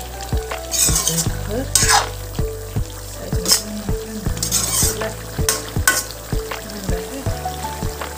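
A metal spoon stirring jackfruit curry in a steel kadai, clicking and scraping irregularly against the pan, while the curry sizzles in the pan.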